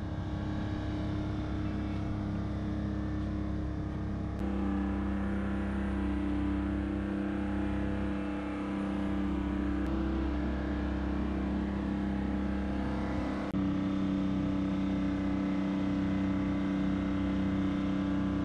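Boat travel lift's engine running steadily with a constant droning tone as the lift hoists a sailboat out of the water in its slings. The drone shifts in pitch about four seconds in and gets a little louder about thirteen seconds in.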